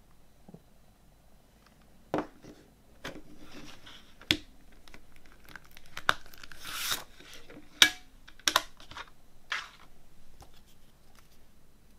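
Plastic CD jewel case being handled: several sharp plastic clicks and snaps as the case is opened and the disc is worked off its centre hub, with a rustling scrape around the middle.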